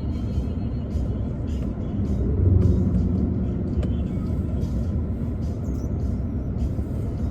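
Steady low rumble of a car's engine and road noise heard from inside the cabin, swelling briefly about two and a half seconds in, with music playing faintly underneath.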